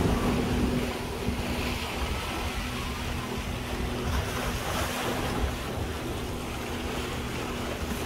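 Speedboat engine droning steadily under wind buffeting the microphone and the wash of sea waves.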